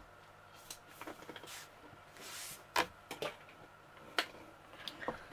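Plastic lap desk being handled and shifted on a table: a scattering of light clicks and knocks, about half a dozen, with a brief soft rustle a little over two seconds in.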